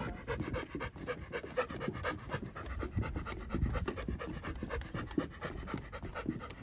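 Bernese mountain dog panting rhythmically with its tongue out, tired from walking.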